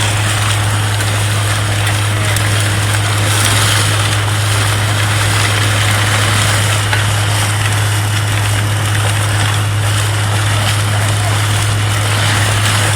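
Vacuum truck running its suction system: a steady low drone from the engine and vacuum pump with an even rushing hiss of air over it.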